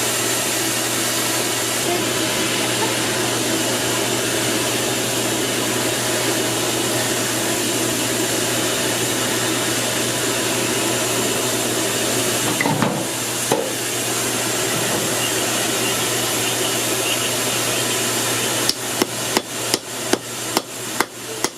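Steady rush of a brake drum forge's air blower, then near the end a quick run of about nine hammer blows on hot steel, roughly three a second, as the 1/4 inch steel bar is shaped into a bracelet.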